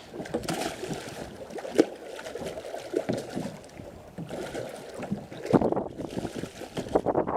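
Wind on the microphone and water sloshing around a small open fishing boat, with a few sharp knocks against the hull or gear.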